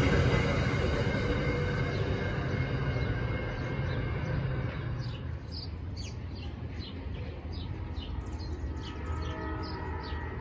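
Virginia Railway Express commuter train of bilevel passenger cars rolling away, its wheel and rail rumble fading over about five seconds. From about halfway in, birds chirping in short repeated calls.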